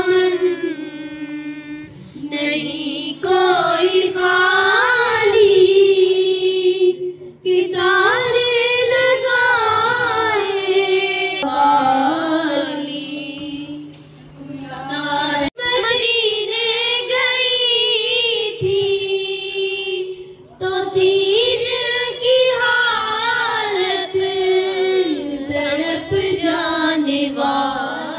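A woman sings a naat unaccompanied into a microphone, in long wavering phrases with short pauses between them, over a steady low hum.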